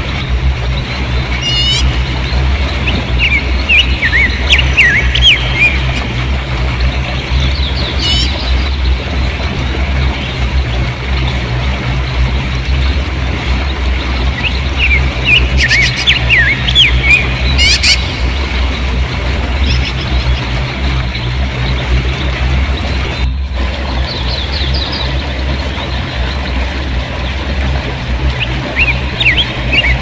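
River rapids rushing over rocks: a steady water rush with a deep rumble underneath. Small birds chirp and twitter over it in short bursts throughout.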